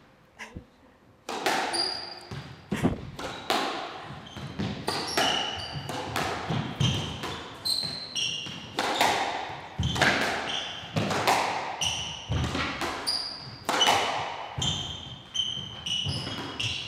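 Squash rally: the ball cracking off rackets and smacking the walls in quick succession, starting with the serve about a second in, with shoes squeaking sharply on the court floor between shots.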